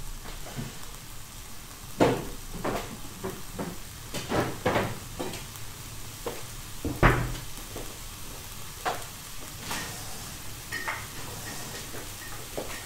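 Chili paste sizzling gently in oil in a frying pan on moderate heat, a steady soft hiss. Scattered knocks and clatters cut through it, the loudest about 2 and 7 seconds in.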